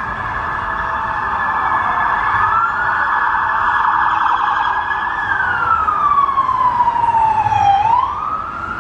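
A siren wailing, its pitch sliding slowly down and then sweeping quickly back up near the end. It grows louder toward the middle and fades after the upward sweep.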